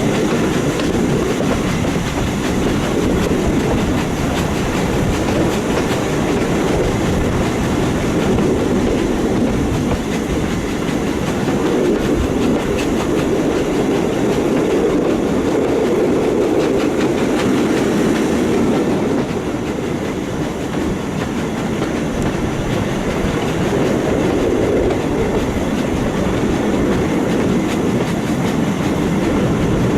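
Heritage steam-hauled train running slowly, about 15 mph, with a steady rumble and the clickety-clack of wheels over rail joints. It eases slightly in loudness about 19 seconds in.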